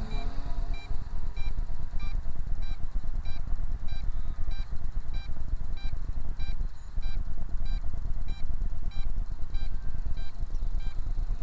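Radio-control transmitter beeping steadily, about three short high beeps a second, over a loud low rumble. The beeping comes from an MJX Bugs 8 transmitter flying a Bugs 3 drone.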